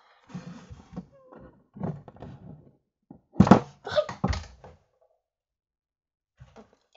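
Handling noise close to the microphone: rustling, then a cluster of dull knocks and thumps about three and a half to four and a half seconds in, as things are picked up and moved.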